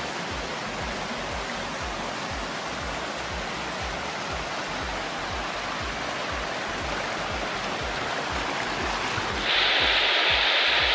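Waterfall water rushing as a steady hiss that steps up, louder and brighter, about a second and a half before the end, with a low, evenly repeating beat of background music underneath.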